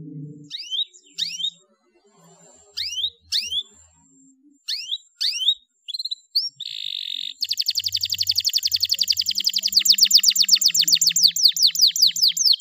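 Domestic canary singing: scattered, sharply falling chirps, a short buzzy note about six and a half seconds in, then a fast trill of falling notes, about nine a second, from about seven and a half seconds on.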